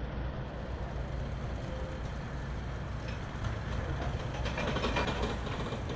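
E&F Miler Hi-Miler steel roller coaster running: a steady low rail rumble, with rattling, ratchet-like clicks building in the second half.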